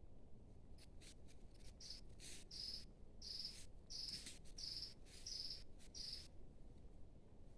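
A forest insect calling in a run of short, high, evenly spaced chirps, about one every two-thirds of a second, which stop about six seconds in; faint low background noise underneath.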